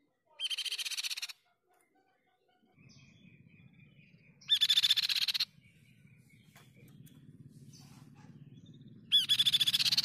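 Chestnut-winged babbler singing: three loud, rapid trilled phrases of about a second each, one about a second in, one near the middle and one near the end. A low steady hum runs underneath from about three seconds in.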